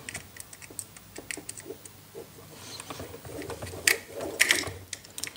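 Small clicks and scrapes of a screwdriver turning a brass terminal screw on a plastic bulb holder, fastening a wire to it, with two louder scrapes about four seconds in.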